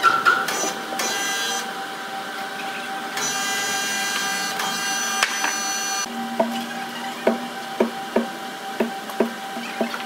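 Hammer blows on the timber at the bandsaw carriage: about seven sharp knocks at uneven spacing in the second half. Sawmill machinery hums steadily throughout, and a machine's high whine stops suddenly about six seconds in.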